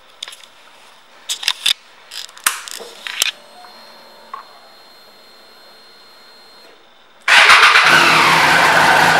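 A few clicks and knocks of hands at the controls, then a faint steady whine for about three seconds, then about seven seconds in the 2011 Triumph Street Triple's 675 cc inline-three engine fires up and runs loud and steady at idle.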